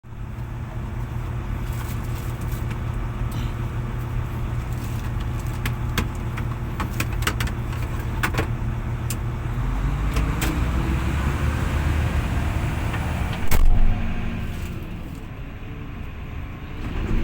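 Heavy diesel machinery running steadily, with a series of sharp metallic clicks and rattles in the middle and a loud thump a little past halfway.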